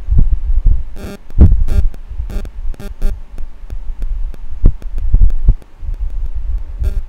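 Computer mouse handled on a desk while the view is dragged around: uneven low thuds and rumble, with a series of sharp clicks, most between about one and four seconds in and a pair near the end.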